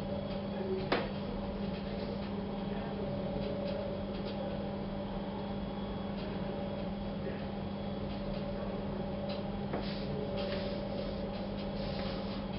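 Drawing on paper over a steady low electrical hum. There is a sharp click about a second in, and short scratchy strokes near the end.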